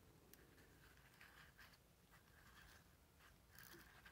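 Near silence, with faint ticks and rustles of a keyless drill chuck being handled in the hands.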